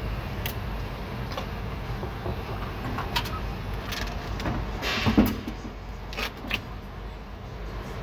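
Plastic and metal parts of a car door latch and handle assembly clicking and knocking as they are handled and worked out of the door, the loudest knock about five seconds in, over a steady low hum.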